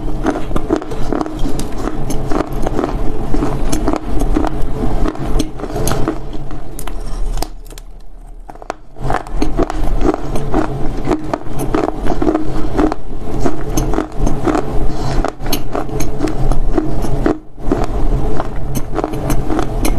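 Dry loess clay being bitten and chewed close to a lapel microphone: dense crunching and crackling, with a short pause about seven and a half seconds in.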